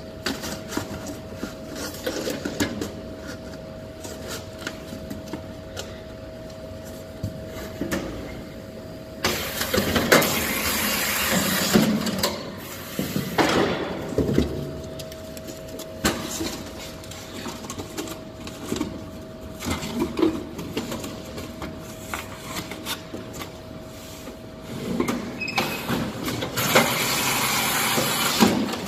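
Comarme GEM X350 random-size automatic case sealer running, with a steady hum and frequent small knocks and clatter as cartons pass through. A louder hissing, rasping noise comes in for several seconds about nine seconds in and again near the end.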